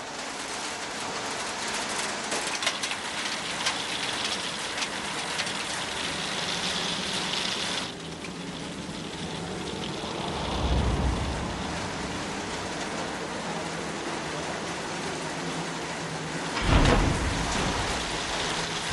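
Heavy hail pelting down in a steady, dense patter of hard little strikes. A low rumble comes about ten seconds in, and a louder, deeper rumble near the end.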